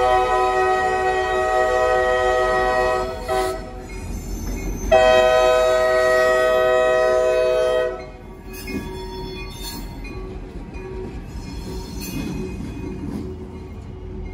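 Diesel locomotive air horn, an SD40-2 blowing for a grade crossing: two long blasts of about three seconds each, a steady multi-note chord. After the second blast the locomotive's EMD two-stroke V16 engine and wheels rumble as it rolls past.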